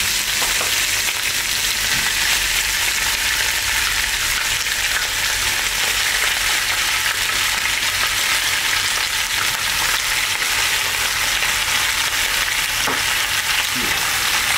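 Bone-in lamb pieces sizzling as they sear in hot oil in a pot, a steady hiss.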